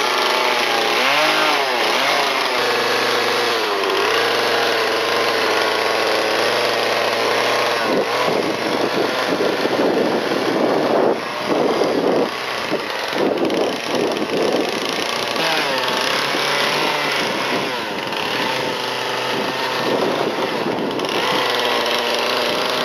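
Husqvarna two-stroke chainsaw carving a block of white cedar, the engine revving up and dropping as the chain bites into the wood and pulls free. The middle stretch is choppier, with a run of short cuts.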